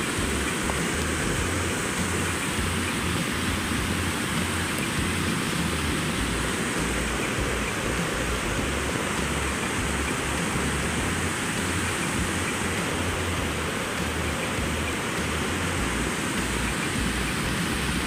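A cascade of river rapids: white water rushing over rocks, a steady, even rush of water at constant strength.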